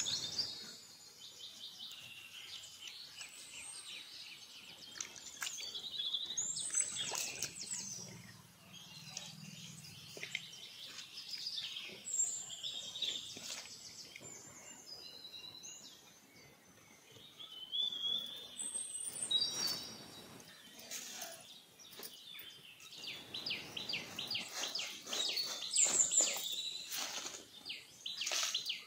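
Small birds chirping and calling again and again, with a run of quick repeated chirps near the end. Scattered clicks and knocks of handling are heard between the calls.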